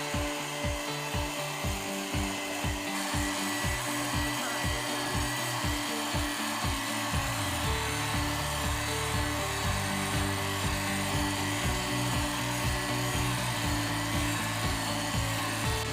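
Background music with a steady beat of about two strokes a second; the bass line changes about seven seconds in.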